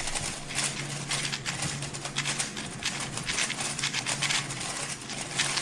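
A Rubik's-style 3x3 speedcube being turned at full speed during a timed solve: a dense, rapid run of plastic clicks and clacks that starts abruptly. A low steady hum sits underneath.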